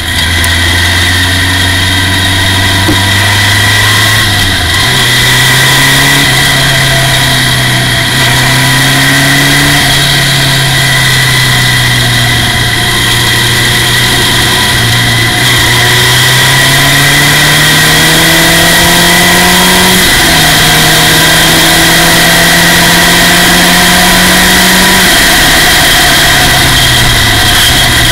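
Formula Ford race car's engine heard from the cockpit, running loud at speed on track. Its pitch climbs under acceleration and drops sharply a couple of times at gear changes, then falls near the end as the car slows for a corner before picking up again.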